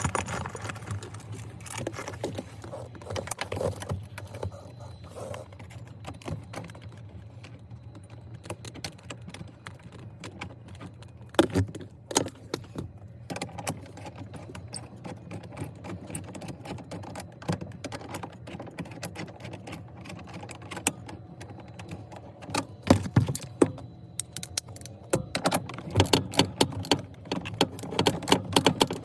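Seat belt mounting hardware, a steel bolt with its spring washer and fender washer, being handled and refitted, giving scattered metallic clicks and clinks with a few louder knocks. The clicking grows denser in the last few seconds.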